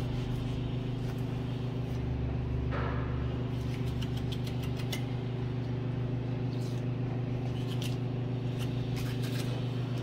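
A steady low machine hum, with a few faint scrapes and taps as a long knife slices a large king mackerel's fillet away from the backbone.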